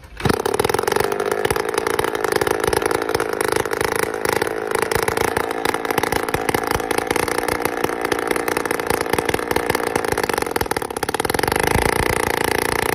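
Small single-cylinder motorcycle-type engine fitted to a motorised wheelchair, running steadily with a fast, even putter.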